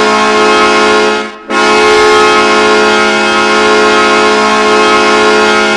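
Penn State Nittany Lions hockey goal horn, the arena horn sounded when the team scores. It gives one loud, steady blast, breaks off briefly about a second and a half in, then sounds a second long blast.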